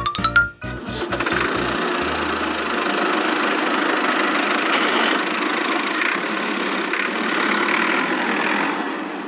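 Cartoon vehicle engine sound effect: a steady, even, noisy running sound with no clear pitch, starting about half a second in after a short rising musical glide.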